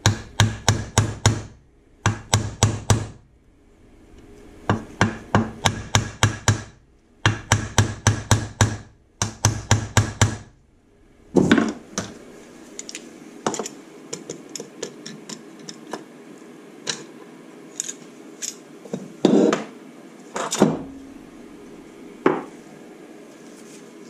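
Hammer blows driving main bearing shells into the aluminium crankcase of a Suzuki SV650 engine: five quick runs of several sharp taps each, followed by lighter clinks and a few knocks as parts and tools are handled.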